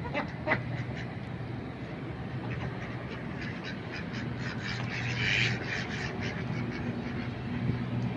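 Ducks quacking off and on, with a denser run of calls about five seconds in, over a steady low hum. A couple of sharp clicks come in the first second.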